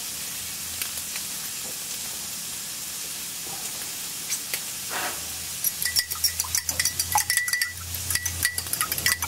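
Oil and diced ham sizzling steadily on a hot flat-top griddle. A little past halfway, fast clinking starts and keeps going: eggs being whisked in a bowl.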